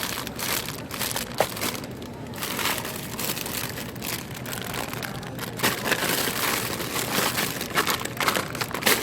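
Plastic packaging crinkling and crackling in an irregular run as it is handled.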